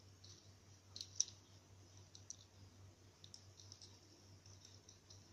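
Faint scattered clicks and ticks from handling a squishy toy and its cardboard hang tag, with a sharper pair of clicks about a second in, over a faint steady low hum.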